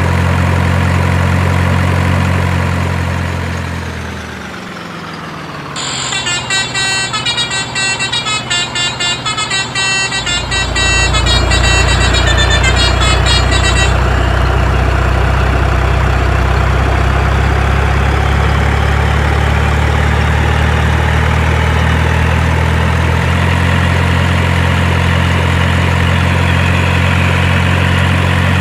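Multi-tone 'telolet' truck horn playing a quick, warbling tune for about eight seconds. Around it a truck engine's low rumble fades out about four seconds in and comes back strongly about ten seconds in, then keeps running steadily.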